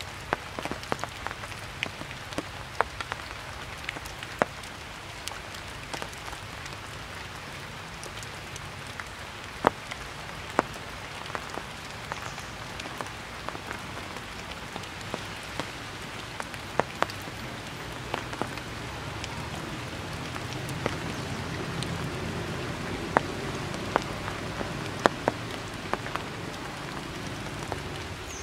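Steady rain falling, with frequent single drops landing close by as sharp taps at irregular intervals; the rain grows a little louder in the second half.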